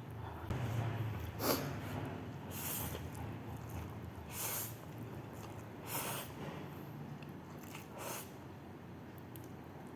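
A person sniffing sharply and repeatedly, about five sniffs a second or two apart, a typical reaction to very hot chilli.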